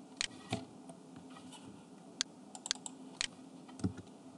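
Sparse computer keyboard keystrokes and mouse clicks, a handful of separate sharp clicks at irregular intervals.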